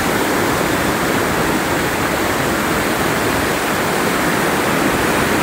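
Steady rush of fast-flowing water from a river running high after rising.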